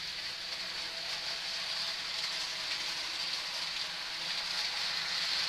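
Model train locomotives, led by an Athearn Genesis diesel, running along the layout track: a steady hiss of motor and wheels with a faint steady whine.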